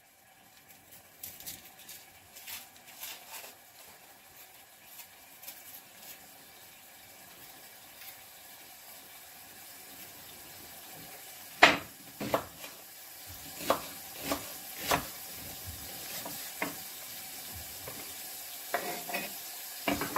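Beef brisket searing in oil in a heavy pot: a sizzle that grows steadily louder as the pan heats. A few sharp knocks sound over it, the loudest about halfway through.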